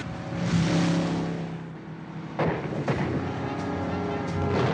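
Speedboat engines running in a film soundtrack, with a sharp bang about two and a half seconds in and a few lighter cracks after it.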